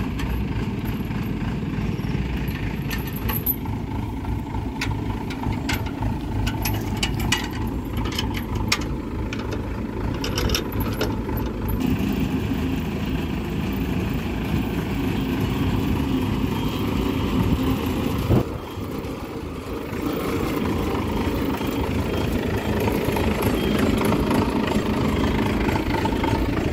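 Tracked corn combine harvester's engine running steadily as the machine crawls along on its rubber tracks. Scattered clicks and clanks sound over the first half, and the engine grows fuller about halfway through.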